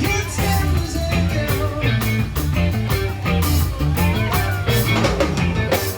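Live rock music: electric guitar, bass and drum kit playing steadily.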